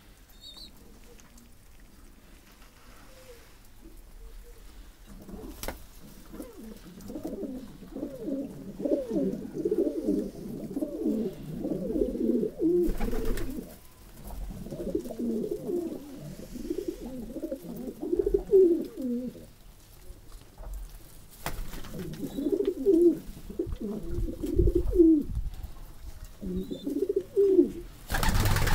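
A flock of domestic pigeons cooing, many birds calling over one another in low warbling coos that start about five seconds in and carry on with short lulls. A brief burst of noise comes right at the end.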